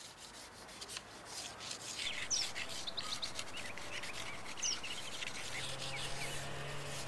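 Charcoal stick scratching and rubbing across paper in steady strokes, with a few short high chirps over it. A low steady hum comes in near the end.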